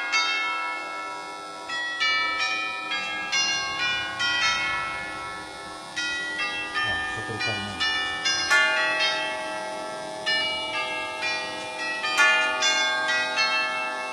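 The chime train of a circa-1854 J.W. Benson grandfather clock plays a tune on its tubular bells. Hammers strike the tubes one after another, about two or three notes a second with brief pauses, and each note rings on into the next.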